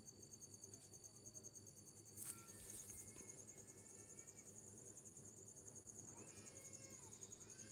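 Near silence, with a faint, steady, high-pitched pulsing insect trill in the background.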